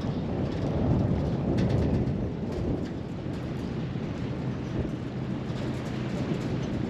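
Wind buffeting the microphone: a heavy, uneven low rumble that swells and eases.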